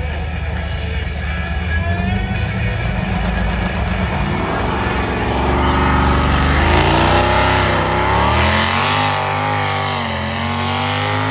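Pulling tractor's engine running at a low steady note, then revving up about four seconds in, its pitch climbing and wavering up and down before settling near the end.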